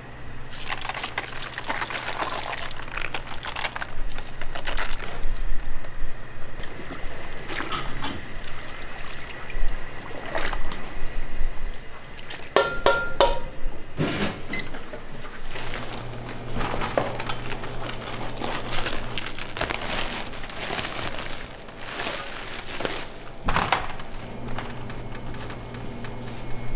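Liquid pouring and splashing during kitchen work, with repeated knocks and a ringing clink about halfway through, over a low hum that drops out and comes back.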